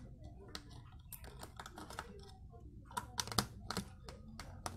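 Light plastic clicks and taps from a Baofeng BF-T1 handheld radio being handled and taken apart. They are scattered at first and come faster about three seconds in.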